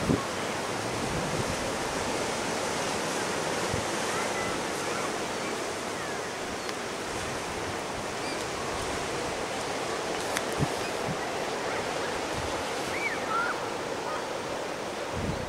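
Ocean surf breaking and washing over a rocky shore, a steady rushing noise.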